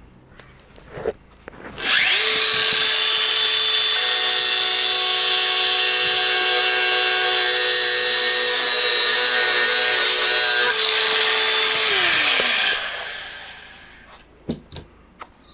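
Power grinder spinning up, grinding the coating off a steel plate down to clean metal, then winding down. It starts about two seconds in, runs steadily for about ten seconds, then its pitch falls and it fades away.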